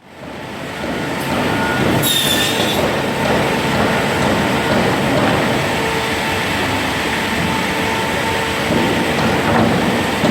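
Semiautomatic crosscut saw (Cursal TVM Ø600) running in a woodworking line, a steady dense clattering machine noise that fades in at the start. About two seconds in there is a brief high-pitched squeal.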